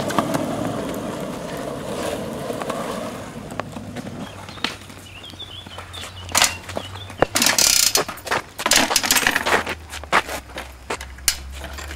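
Skateboard wheels rolling on asphalt for the first few seconds. Then a long run of metallic clicks, clinks and rattles as an old upright bicycle is handled and a skateboard is loaded onto its front rack, busiest about two thirds of the way in.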